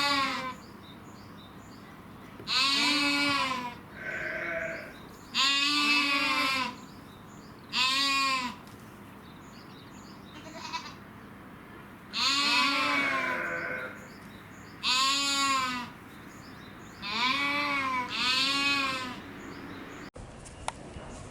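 A goat bleating over and over, about eight loud calls of roughly a second each with a rise-and-fall in pitch, and a few softer, higher bleats in between. The audio cuts away about a second before the end.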